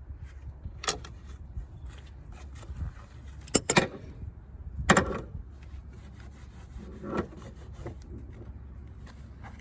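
Sharp metal clinks and knocks of a socket and ratchet being handled and fitted onto a bolt in a car's engine bay: a few scattered clinks, the loudest a quick cluster a little past the middle.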